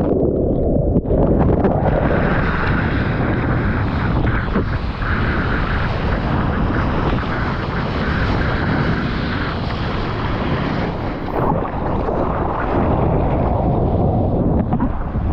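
Ocean water rushing and churning close to the microphone with wind buffeting it, as a surfboard rides a breaking wave. For about the first second it is a dull underwater rumble, then it opens into a full, steady rush.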